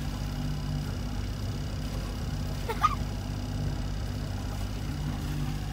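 A sailboat's engine running with a steady low drone, and about three seconds in one short, high-pitched rising cry.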